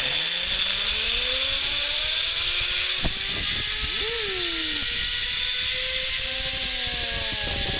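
Zip-line trolley pulleys running along the steel cable. A steady rushing hiss carries whining tones that slowly rise in pitch as the rider picks up speed.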